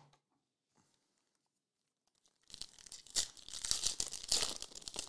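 Mostly quiet at first. About halfway in, a foil trading-card pack is torn open by hand, and its wrapper crackles and crinkles for about two and a half seconds.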